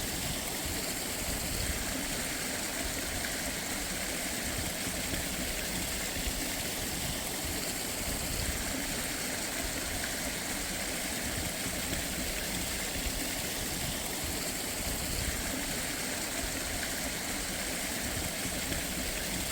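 Water flowing steadily in a stream, an even rushing hiss that keeps up without a break.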